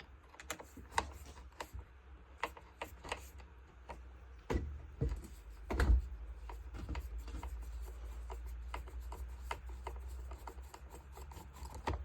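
Hand tools and plastic parts on a Craftsman leaf blower as the Phillips screws of its air filter cover are taken out: scattered light clicks and rubbing, with a few louder knocks around the middle, over a steady low hum.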